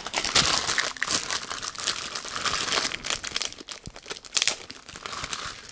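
Clear plastic packaging bag crinkling as a monitor-arm part is handled in it and unwrapped, a continuous crackle with a louder rustle about four and a half seconds in.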